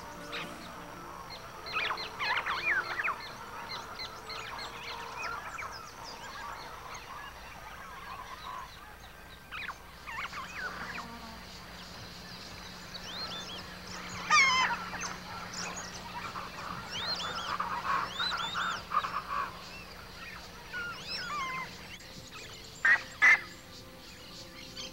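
Wild birds calling in bursts, many quick calls overlapping, with two short, louder calls near the end.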